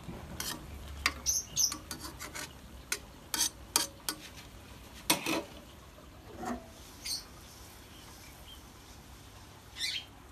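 Metal spoon scraping and tapping against a steel wok while spreading a frying cake of purple yam mash. A quick series of sharp scrapes and clicks fills the first five seconds or so, then a few softer scrapes follow.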